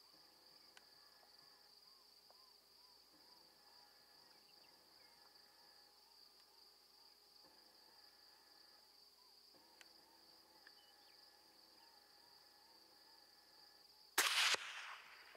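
Insects trilling steadily on one high note, with a faint, quickly repeating chirp beneath. About fourteen seconds in, a sudden loud burst of noise cuts in briefly.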